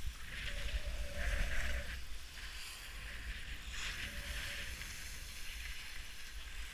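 Skis sliding and scraping over packed snow in several swishes a second or so apart, with wind rumbling on the microphone.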